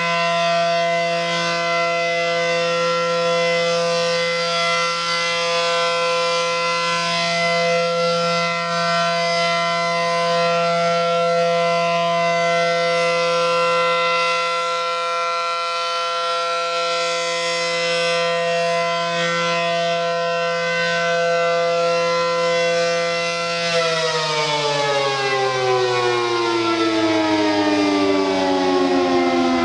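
ACA Allertor outdoor warning siren sounding a steady tone during a siren test; about 24 seconds in it begins to wind down, its pitch sliding steadily lower.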